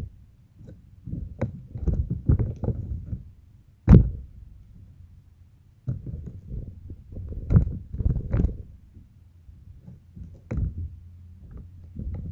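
Slime being squeezed and kneaded by hand, with irregular squelches and several sharp popping snaps, the loudest about four seconds in.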